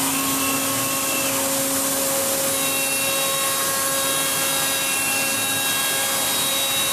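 FPT Dinomax five-axis milling machine's spindle running while an end mill cuts the curved teeth of a large metal gear: a steady machining whine with several held tones over a hiss.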